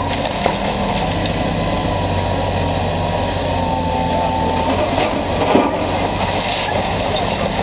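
Diesel engine of a demolition excavator running steadily under load, with a few sharp knocks of the crusher against masonry and debris; the loudest knock comes about five and a half seconds in.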